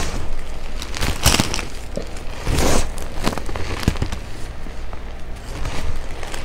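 Hands squeezing and crumbling soft dyed gym chalk: a powdery, crackling crunch, with two louder crunches a little over a second in and near three seconds in, then smaller crumbles.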